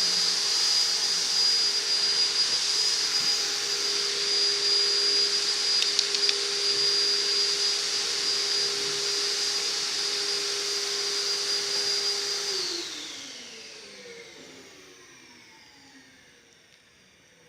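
An electric motor appliance running at steady speed, a high whine over a rushing hiss. About 13 seconds in it is switched off and winds down, its pitch falling as it fades away.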